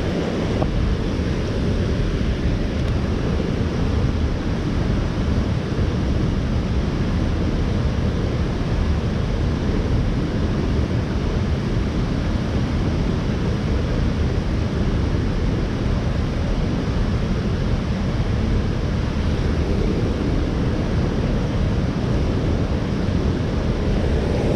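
Steady wind buffeting the microphone over the rush of flowing creek water, an even, unbroken noise heaviest in the low end.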